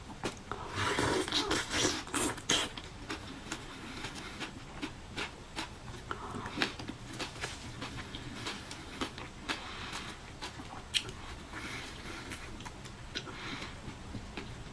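Close-miked eating sounds: chewing with wet mouth clicks and smacks while eating fruit. A louder, noisier spell comes about a second in.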